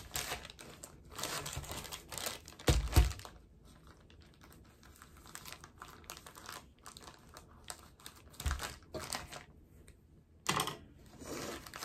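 Plastic mailer bag crinkling and rustling as it is handled and cut open with scissors, in irregular crackly bursts. A couple of low thumps, the loudest about three seconds in and another a little past eight seconds.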